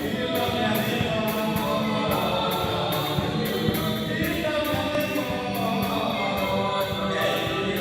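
Music: a choir singing a church song with instrumental backing.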